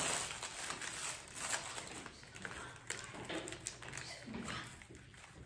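Gift wrapping being torn and crinkled by hand: irregular rustling and small crackles, quieter near the end.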